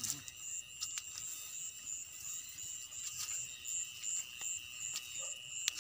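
Night insects calling: a steady high-pitched drone under a higher trill pulsing about four or five times a second. Over this come scattered footsteps and the brush of grass, with one sharp click near the end.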